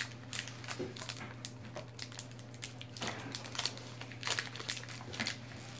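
Foil booster-pack wrapper crinkling and crackling in irregular handfuls as it is gripped and pulled at, the pack proving hard to tear open.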